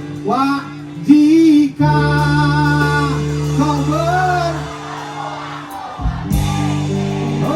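A song: a voice singing a melody over steady held instrument chords, with a brief drop in level about five seconds in.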